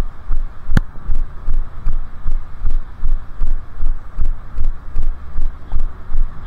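Steady rhythm of low footfall thuds, about two and a half a second, carried through a body-worn camera during a walk that turns into a run. A single sharp click sounds about a second in.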